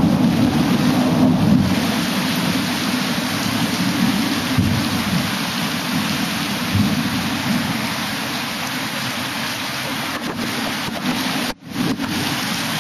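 Heavy thunderstorm rain pouring down steadily, with a low rolling rumble underneath that slowly fades. The sound drops out for a moment near the end.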